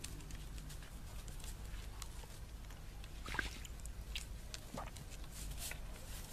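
A dog pushing its muzzle about in a shallow enamel bowl of water after a toad: small scattered splashes and snuffles, with a sharper splash about three and a half seconds in.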